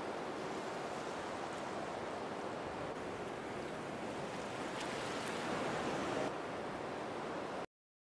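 Waterfall pouring into a pool: a steady rush of falling water, briefly a little louder about six seconds in, that cuts off suddenly near the end.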